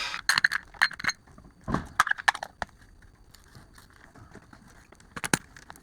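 Scattered sharp metallic clicks and clinks of hand tools working on a car's front shock absorber. They come in a cluster over the first two and a half seconds, then pause, with a few more about five seconds in.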